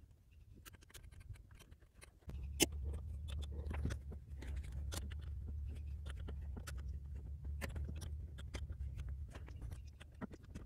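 Irregular clicks and clinks of a socket wrench and extension working the bolts of an EGR valve as it is bolted back onto the engine. A low steady rumble starts about two seconds in and stops near the end.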